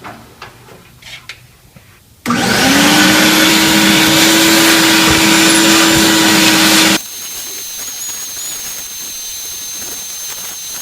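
A vacuum cleaner is switched on about two seconds in. Its motor tone rises briefly, then it runs loud and steady, and it cuts off abruptly around seven seconds in. A few light handling clicks come before it, and a quieter steady hiss with a faint high whine follows.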